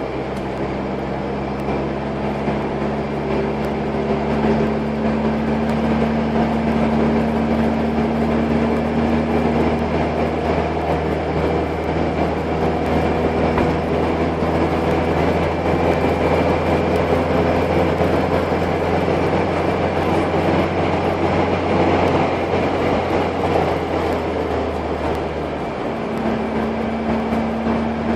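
Car engine running under way, heard from inside the cabin with road noise: a steady drone whose pitch climbs slowly, with a change in the engine note about 25 seconds in.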